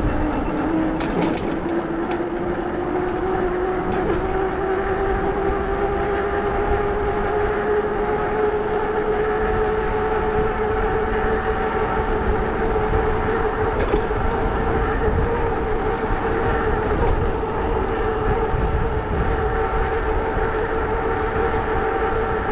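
Electric e-bike motor whining, rising in pitch as the bike gathers speed over the first several seconds and then holding a steady pitch at cruising speed, over wind rumble on the microphone and a few light knocks.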